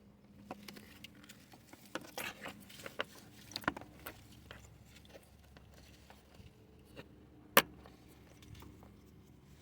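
Scattered clicks and short rattles of harness connectors and tools being handled in a car's engine bay, with one sharp, loud click about seven and a half seconds in.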